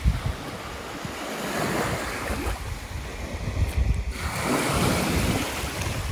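Small waves of the Baltic Sea lapping and washing up a sandy shore, with wind buffeting the microphone.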